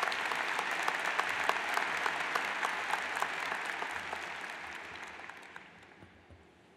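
A large arena crowd applauding with dense clapping, which tapers off and fades out over the last couple of seconds.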